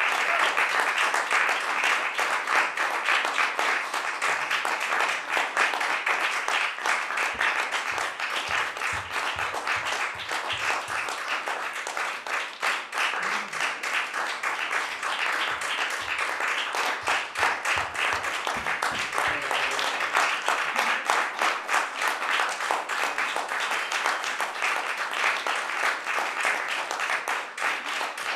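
Theatre audience applauding, a steady dense clapping that carries on throughout.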